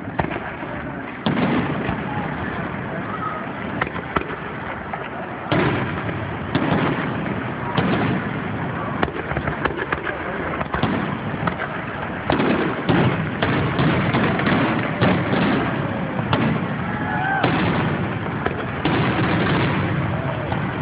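Fireworks display: aerial shells bursting with sharp bangs, a few spaced seconds apart at first, then crowding into a rapid volley of bangs and crackle in the second half.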